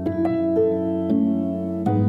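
Soft instrumental background music: single notes struck one after another over a held low chord.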